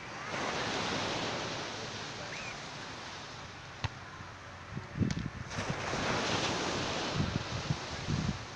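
Wind rushing in two gusts and buffeting the microphone with low rumbles in the second half. A single slap of a volleyball being hit comes just before the middle.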